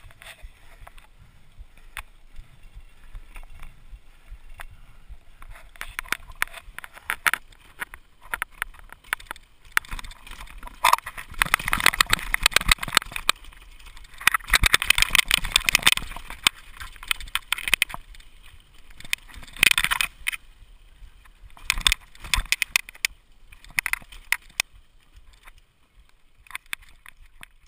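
Mountain bike rattling and clattering over a rough, rocky dirt trail: dense rapid knocks and crunches from tyres and frame, heaviest in a long spell about halfway through and in shorter bursts after it.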